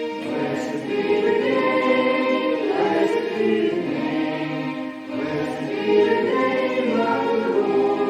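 Congregation singing a hymn together, holding long notes in phrases with brief breaks between them.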